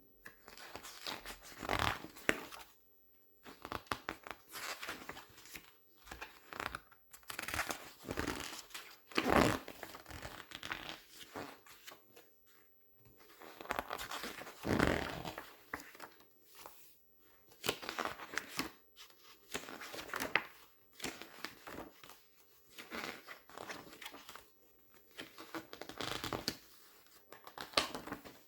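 Glossy paper pages being turned and squeezed by hand, giving irregular bursts of crinkling and rustling with short pauses between.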